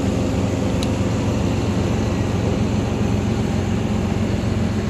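Forestry forwarder's diesel engine running steadily as the tracked machine drives up steepening ground, a low even drone, with a light click about a second in.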